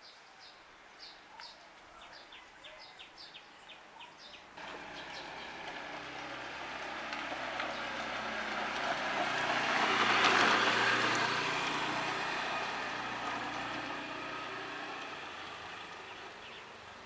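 Honda Scoopy i scooter fitted with a side-wheel trike kit riding past: its engine comes in abruptly about four seconds in, grows louder to a peak about ten seconds in, then fades as it rides away. Birds chirp repeatedly before the engine sound comes in.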